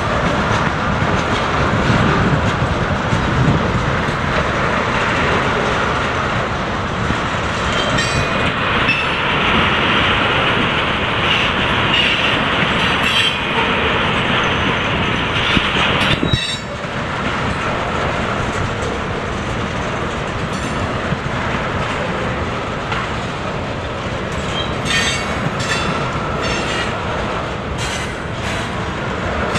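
Freight train of tank cars rolling past, steel wheels clacking over the rail joints with a steady rumble, a brief high wheel squeal about a third of the way in and clusters of sharp clicks near the end.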